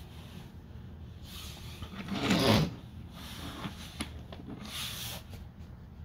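Plastic Transformers toy vehicles being slid and turned by hand on a tabletop: a scraping rub, loudest a little past two seconds in, with a shorter one near five seconds.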